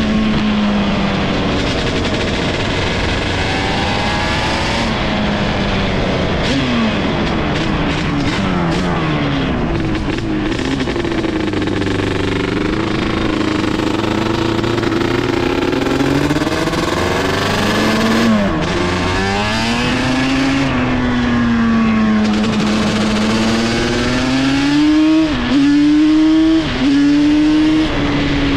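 1990 Yamaha Banshee's freshly rebuilt 350 cc twin-cylinder two-stroke engine revving up and down as the ATV is ridden, its pitch rising and falling again and again, highest and loudest near the end.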